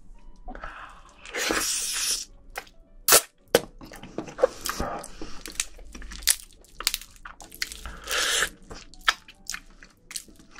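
Close-miked eating of spicy marinated raw crab (yangnyeom gejang): crab shell cracking and crunching in many sharp clicks, with wet squishing of the sauced meat. Two longer hissing stretches come about a second in and near eight seconds in, and the sharpest crack about three seconds in.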